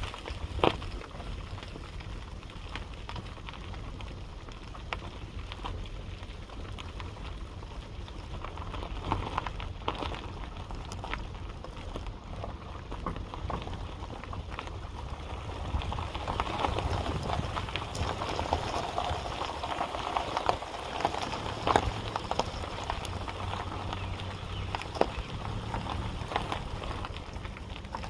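Outdoor handheld ambience: steady low wind rumble on the microphone with crackling noise and scattered sharp clicks, a little louder past the middle.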